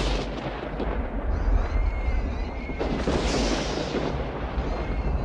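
Soundtrack thunder: a loud crash that breaks in suddenly and rolls on as a deep, continuous rumble.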